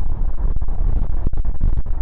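Strong wind buffeting the phone's microphone: a loud, heavily distorted low rumble, cut by brief dropouts several times.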